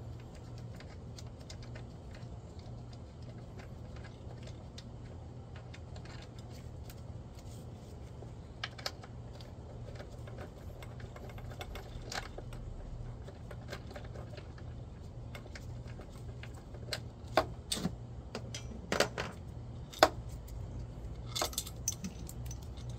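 Hand tools and metal parts clicking and clinking while the intake area of a car engine is taken apart. The clicks are sparse at first and come more often in the last six seconds, over a steady low hum.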